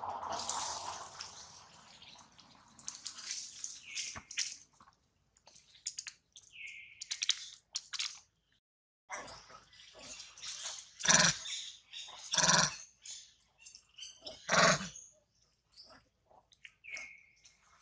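Long-tailed macaques calling: scattered short squeaks, then three louder harsh calls in the second half.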